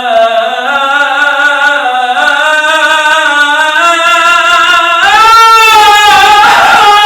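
A man singing an Arabic Islamic devotional inshad, drawing one word out into a long melismatic line. The pitch climbs in steps, and about five seconds in the voice swells louder on a wavering, bending note.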